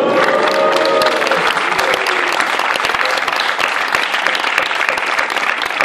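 Audience clapping and cheering: dense applause throughout, with voices whooping in a rising and falling cheer in the first second or so.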